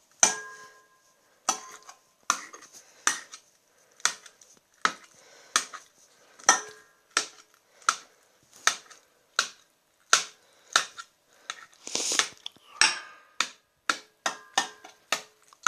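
Dog eating dry food from a bowl: a run of sharp crunches and clinks, about one and a half a second, coming faster near the end.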